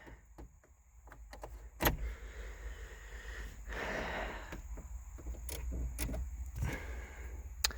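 A few sharp clicks and knocks with light rustling as fittings inside a car's cabin are handled, over a steady low rumble.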